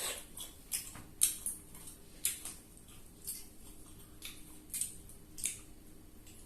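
Fried chicken cartilage being chewed close to the microphone: about a dozen crisp, irregularly spaced crunches.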